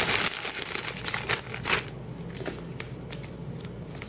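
Paper bag of rice flour crinkling and rustling as the flour is shaken out into a glass mixing bowl. The rustle is busiest for the first two seconds, then thins to a few scattered ticks.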